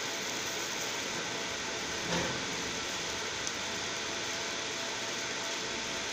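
Steady fan-like whir with a faint steady hum from a 20-watt fiber laser marking machine running while it marks a plastic animal ear tag. A soft knock about two seconds in and a small click about a second later.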